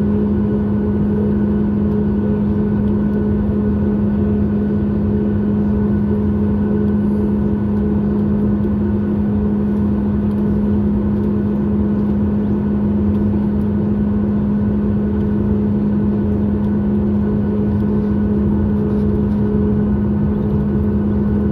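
Boeing 737 MAX 8's CFM LEAP-1B engines at taxi power, heard inside the cabin: a steady hum with a strong low tone over a rumble, unchanging in level.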